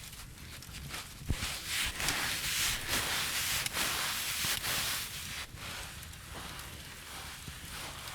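Close-miked rustling with scattered crackles and clicks, louder for a few seconds near the start, then softer.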